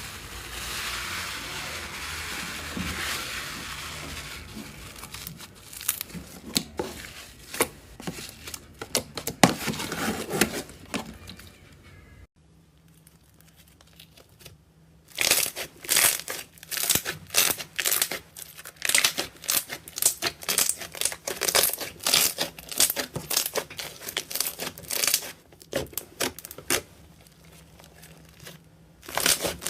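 Slime being squeezed and stretched by hand, making rapid wet clicks and crackling pops. A soft hissing comes first. The sound stops abruptly about twelve seconds in, then comes back as dense bursts of clicking with a brief lull near the end.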